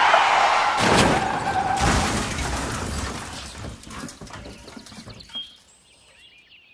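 Car crash: a tyre screech running into a loud impact with shattering glass, the crashing clatter dying away over about four seconds.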